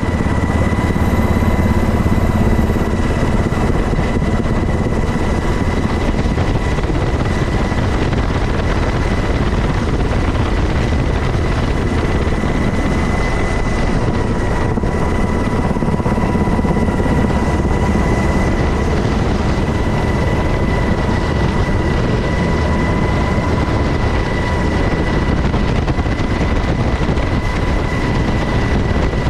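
Steady helicopter noise heard from aboard the aircraft with its door open: a dense rumble of rotor and engine with a constant high whine over it.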